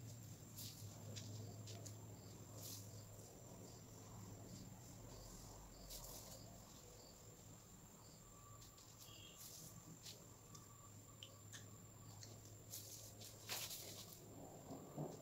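Near silence: faint room tone with a low hum and a thin steady high whine, plus a few soft, brief rustles of fingers trickling rangoli powder onto a tiled floor, the loudest near the end.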